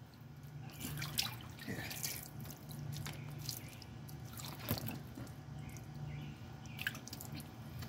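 Faint splashes and drips of shallow water as a baby pats and plays in a kiddie pool, a few light taps among them, the clearest about five seconds in, over a steady low hum.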